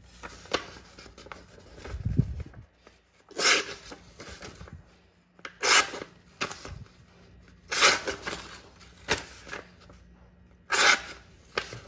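A high-carbon leaf-spring steel knife blade slicing into a sheet of paper in a cut test: about five short, crisp cuts with soft paper rustling between them. The blade has an edge and cuts, though it could take a sharper one.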